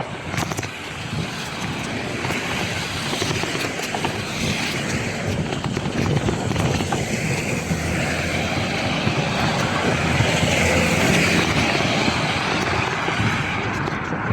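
Motor traffic passing on a wet road: engine noise and tyre hiss on wet tarmac, building steadily over several seconds and easing off near the end.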